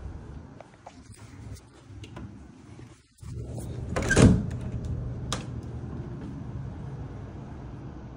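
Handling noise from a handheld phone: a steady low hum with scattered light clicks and knocks, a brief dropout about three seconds in, then a loud scraping rub about four seconds in.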